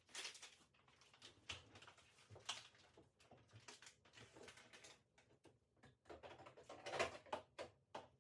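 Faint scattered knocks, clicks and rustles of food containers and packages being handled and moved, with the loudest cluster about seven seconds in.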